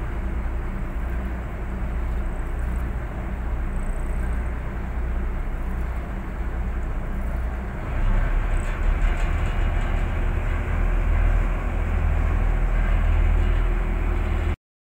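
Boat's engine running steadily with a deep hum and water noise; about eight seconds in it grows louder and deeper, as if the throttle were opened.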